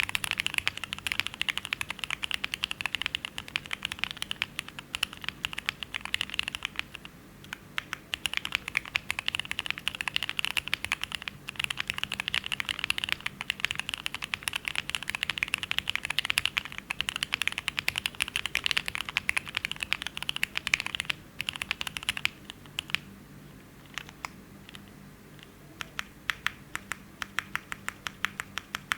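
Fast continuous typing on a KBDfans Taco75 mechanical keyboard with Cherry MX2A Black linear switches, an aluminium plate and GMK keycaps. About 22 seconds in it slows to separate single keystrokes, a few a second.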